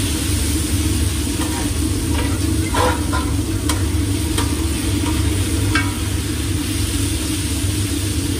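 Sliced sausage sizzling on a flat-top steel griddle as it is tossed and stirred by a gloved hand, with a few light clicks and scrapes against the metal, over a steady low hum.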